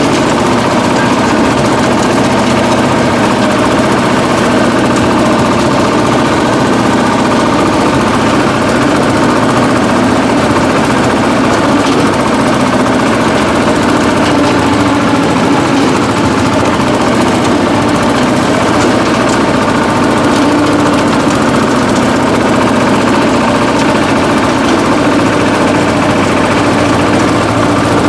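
Shifeng-240 belt-drive mini tractor's 24 hp water-cooled engine running steadily under load while it drives a 1.4 m rotary tiller through the soil.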